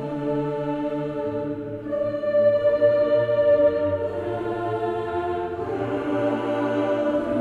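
Background music with long held, choir-like vocal notes that swell louder about two seconds in.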